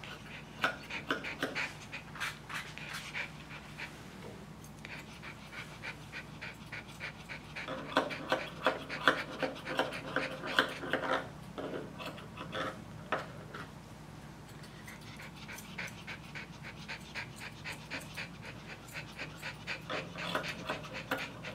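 Small dog panting rapidly, quick short breaths coming in spells that pause and start again, over a low steady hum.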